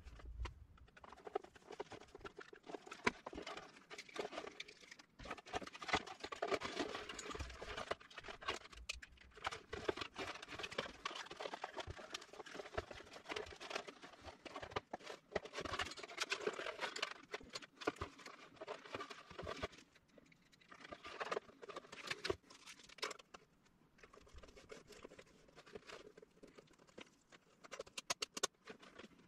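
Irregular rustling, crinkling and many small clicks of close-up handling work, with no motor running.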